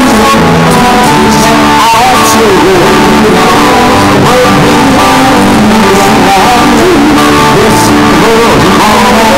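Live band playing: two acoustic guitars strummed with an electric bass guitar, over steady chords without a break.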